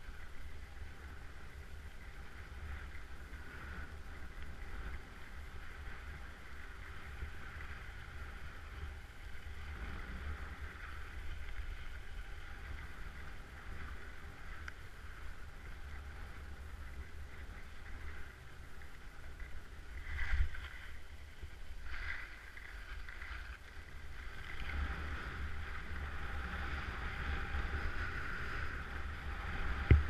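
Skis sliding and scraping over snow, a steady hiss over a low rumble, with two louder scrapes about two-thirds of the way through and the hiss growing toward the end.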